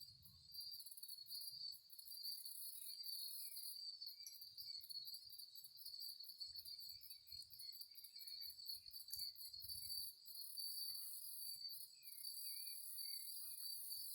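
Insects calling in the scrub: one steady high-pitched drone, and over it a still higher trill that pulses rapidly in long runs. A few faint bird chirps come through now and then.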